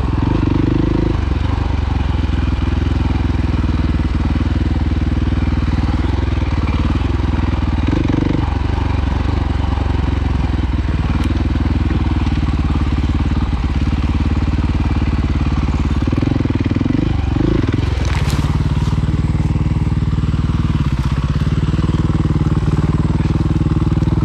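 Dirt bike engine running under throttle on the trail, the pitch rising and falling as the rider works it. About eighteen seconds in there is a sharp crash-like noise, and after it the engine settles to a steadier, lower run as the bike goes down on its side.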